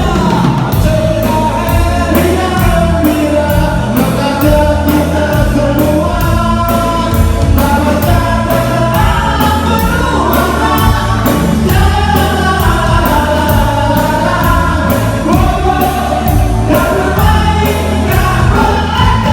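A band playing a song with several voices singing together over a steady beat of about two strokes a second and a strong bass.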